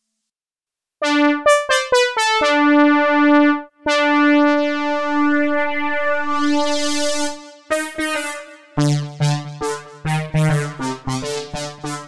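Synth brass patch modelled on an Oberheim OB-Xa, the 'AB-1 Trumpet Ensemble' preset, played on a keyboard. A few quick notes come in about a second in, followed by long held notes, and then a run of short chord stabs over a low bass note from about nine seconds.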